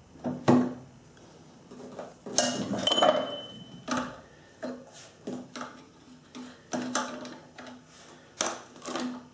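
Sharp metal clicks and clinks, about a dozen at irregular intervals, with a short metallic ring about three seconds in. They come from the quill return spring housing on a South Bend drill press head being turned by hand to set the spring tension.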